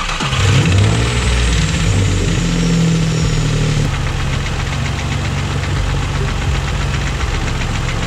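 Infiniti G35's V6 catching and running at a fast idle, then settling to a lower idle about four seconds in, with a rapid, steady internal knock throughout. This is the knock of a heavily damaged engine, which the owner puts down to worn bearings, and an engine-repair oil additive just added has not quieted it.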